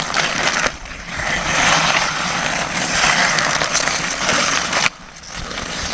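Hockey skate blades scraping and carving across outdoor pond ice, a steady hiss that drops away briefly about a second in and again near the end.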